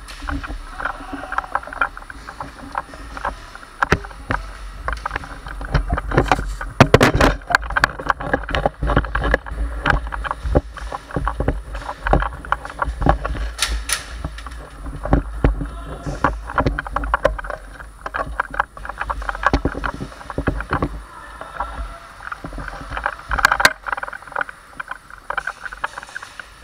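Rubbing and rumbling of a moving body-mounted camera as a player creeps along, with footsteps, gear rattle and scattered sharp knocks and clicks.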